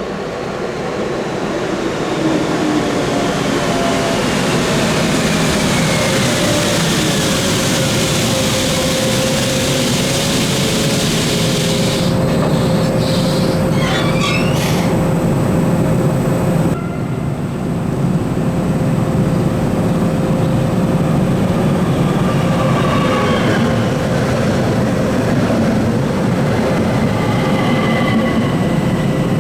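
ÖBB class 1144 electric locomotive with a regional train running through the station: a steady hum with a whine that falls in pitch as the train slows. The sound shifts abruptly about 17 seconds in, and short high wheel squeals come near the end.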